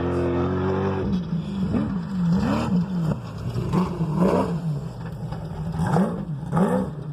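Desert race car engine revving, held high for about a second and then rising and falling in pitch over and over as the throttle is worked.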